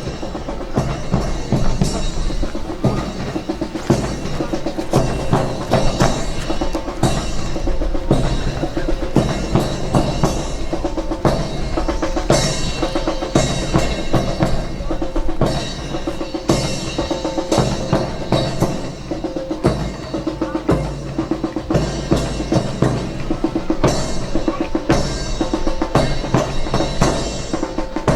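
Percussion-heavy music with drums keeping a steady, driving beat.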